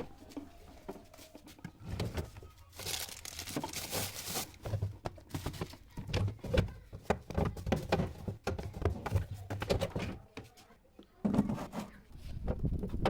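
Handling sounds of objects being moved and set down on a work surface: irregular knocks and clicks, with a crinkling rustle lasting about a second and a half, about three seconds in.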